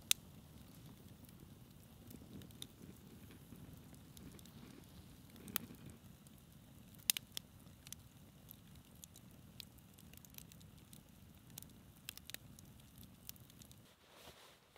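Campfire of logs burning in a steel fire ring: a low, steady rush of flames with scattered sharp crackles and pops, a couple of louder pops in the middle. The fire sound drops away shortly before the end.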